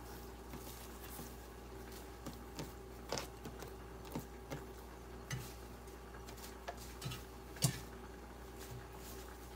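Light, scattered clicks and knocks of hands handling wet herbs and a metal colander and bowl in a kitchen sink, the sharpest one about three quarters of the way through, over a faint steady hum.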